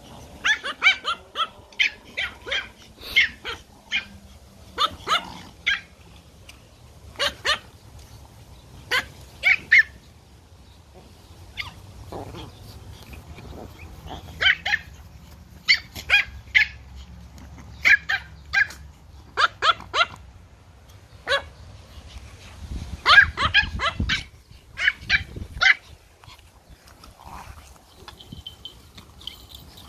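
Pomeranians barking in short, high-pitched barks that come in clusters with brief pauses between.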